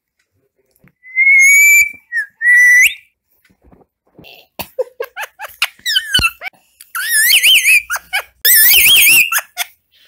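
Indian ringneck parakeet whistling: a clear whistle about a second in and a second that rises at its end, then a run of short chirpy calls. Near the end come loud warbling whistles that waver up and down in pitch.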